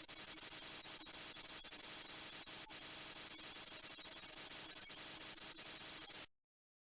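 Steady static hiss with faint scattered ticks, which cuts off abruptly into dead silence a little over six seconds in.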